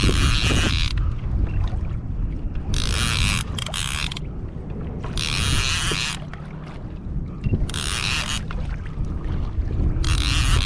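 Water and wind noise on a pedal kayak at sea: a steady low rumble with a loud hiss of water rising about every two to three seconds, each lasting about a second.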